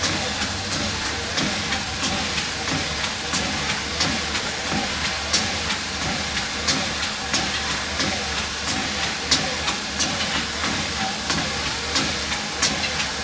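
Walking pad treadmill running under a person walking: a steady whir and hiss from the motor and belt, with regular footfalls landing on the belt at a walking pace.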